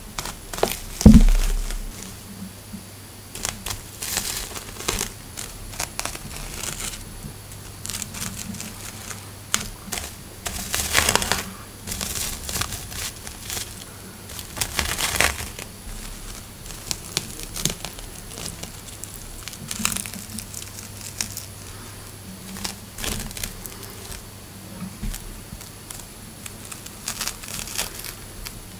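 Irregular crinkling, crackling rustles of dense spider silk being disturbed as a funnel-web spider and a green banana roach move in the web, in short scratchy bouts. One sharp thump about a second in is the loudest sound, over a faint steady hum.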